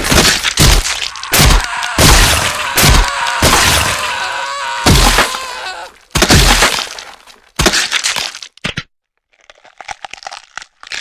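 A rapid run of loud crashing, breaking impacts, one every half second or so, that thins out after about seven seconds. After a brief silence, fainter crackling and crunching follows near the end.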